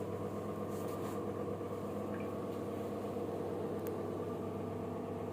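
Electrolux washing machine running steadily just after its quick wash program is started: a steady mechanical hum with a few faint clicks.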